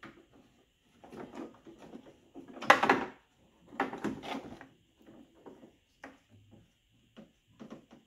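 Plastic keypad door handle assembly knocking, clicking and scraping against the truck door as it is worked into place and its wire fed through, in uneven bursts with the sharpest clatter about three seconds in.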